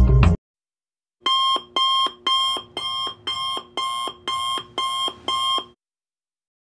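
A smartphone alarm going off: nine short electronic chime pulses, about two a second, that stop abruptly near the end. It is a wake-up alarm.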